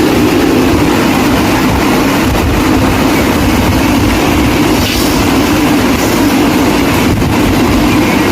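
A train running along the track: a loud, steady rumble.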